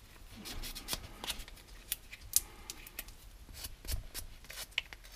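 A small hand file scraping at the edge of a broken part in short, irregular strokes, squaring the fracture off to a straight edge.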